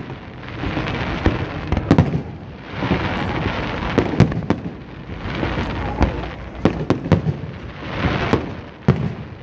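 Fireworks display: aerial shells bursting overhead in a string of sharp bangs about a second apart, with a rushing noise swelling and fading between them.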